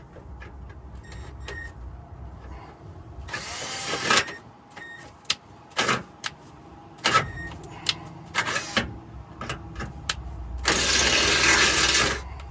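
Hand-tool work on metal hardware: scattered clicks, knocks and clanks, with two longer scraping rushes of noise, the louder one near the end.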